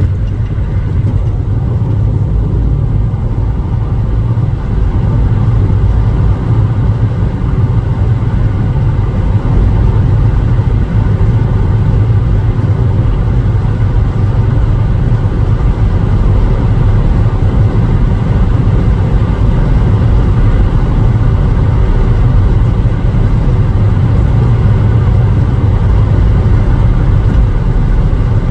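Steady low rumble of a car travelling at highway speed: road and engine noise.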